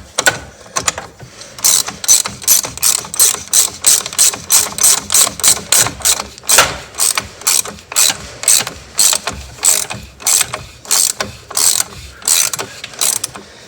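Ratchet wrench clicking in a steady run of strokes, about two to three clicks a second, tightening the oil filter housing cap of a 6.0 Powerstroke back down.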